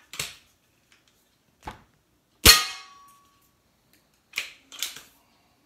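Diana 240 Classic .177 break-barrel spring-piston air rifle fired once: a sharp crack with a brief ringing tone, the loudest sound, about two and a half seconds in. Fainter clicks and knocks come before and after it.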